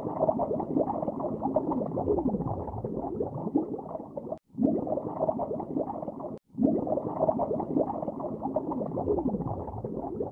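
Underwater ambience sound effect: muffled bubbling and gurgling with a deep tone that slides downward. The clip cuts out and restarts twice, about four and a half and six and a half seconds in.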